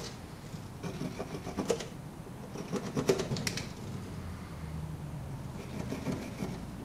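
Soft scratches and taps of a carpenter's pencil and tape measure being handled on a foam tile backer board while a measurement is marked out, with a few short strokes about a second in and again about three seconds in, over a faint low hum.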